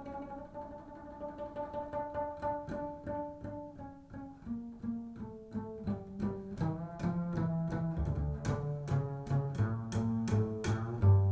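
Solo double bass played pizzicato: a run of plucked notes that starts in a higher register and quieter, then grows faster, lower and louder in the second half.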